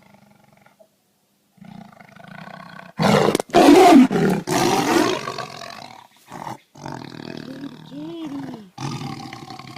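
Tiger growling low, then roaring loudly in several close bursts for about three seconds, trailing off into quieter growls and snarls that waver in pitch.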